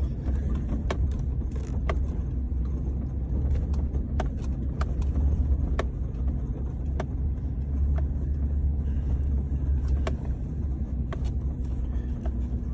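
A vehicle driving, heard from inside the cab: a steady low rumble of engine and road, with sharp clicks and knocks scattered irregularly through it, about one or two a second.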